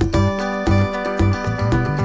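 Background music with a steady beat and pitched instrument notes.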